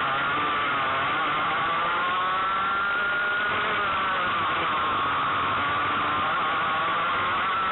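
Racing kart engine running hard at high revs, heard close up from an onboard camera. Its pitch wavers slightly, rising and falling a little as the kart drives.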